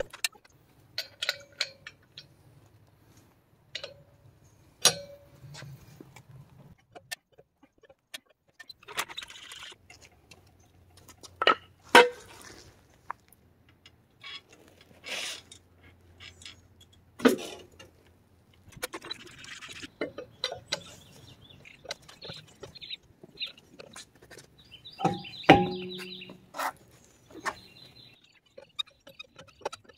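Scattered metallic clanks, clicks and knocks of wheel-removal work: a four-way cross lug wrench on the lug nuts, a floor jack and steel jack stands being set under the truck. The knocks come at irregular intervals, with the loudest around halfway through and near the end.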